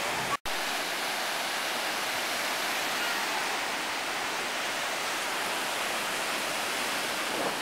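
Small ocean waves washing up on a sandy beach, a steady rushing hiss, broken by a brief cut-out about half a second in.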